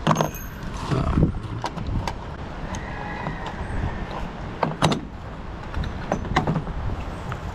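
Scattered clicks and knocks of small metal carburetor parts and a hand tool being handled on a tailgate, over a low steady rumble.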